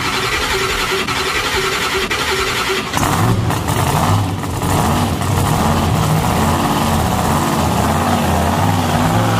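Monster truck engine cranking on the starter for about three seconds, then catching and running, its revs rising and falling unevenly.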